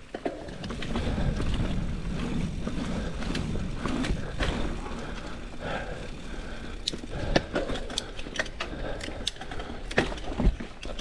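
Mountain bike being ridden through loose sugar sand: steady tyre noise over a low rumble, with scattered rattling clicks from the bike's chain and frame.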